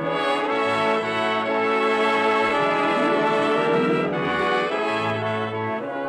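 Orchestral music led by brass, playing long held chords: the opening theme of a radio program.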